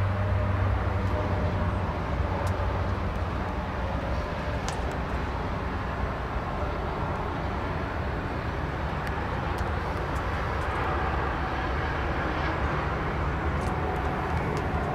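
An engine running steadily at a constant speed, heard as a continuous low hum, with a few faint clicks.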